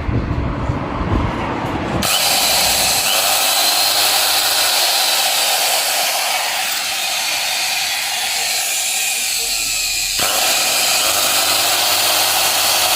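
Dongcheng FF-110 stone cutter's brushed motor switched on about two seconds in and running steadily, with a brief change in its sound about ten seconds in. It sparks heavily inside, 'like welding', from a burnt commutator.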